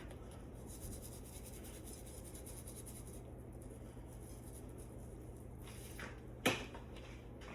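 Seasoning being sprinkled from a shaker: faint, fine rustling, then a single sharp click about six and a half seconds in.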